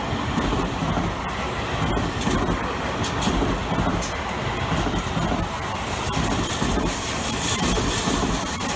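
Seibu Railway 20000 series electric train running past along the platform, steady wheel-on-rail noise with occasional sharp clacks.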